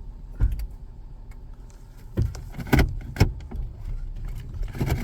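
Vehicle engine running steadily, heard from inside the cabin, with a handful of knocks and clicks of handling scattered through.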